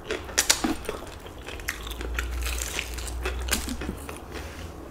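Close-up crunchy chewing of a breaded fried chicken wing: a run of sharp, crisp crunches, densest in the first second and thinning out toward the end.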